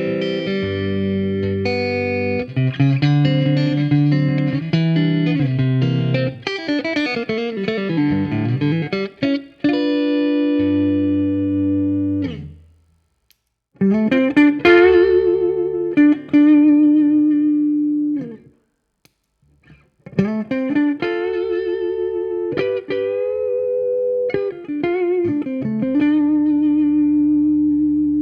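Electric guitar played through a compressor pedal: chords and picked single notes that are held and ring out evenly, with two brief pauses where the playing stops.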